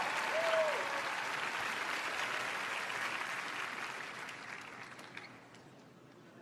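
Theatre audience applauding, the applause dying away over the last couple of seconds.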